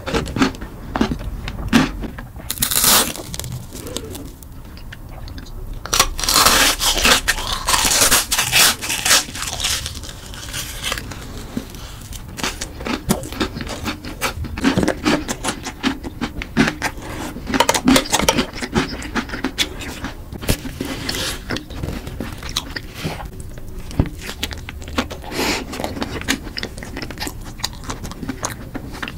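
Close-miked eating sounds: chewing and lip smacks with crunches and scrapes, as chocolate cake and sweets are eaten. The crunching and smacking is busiest about six to eleven seconds in.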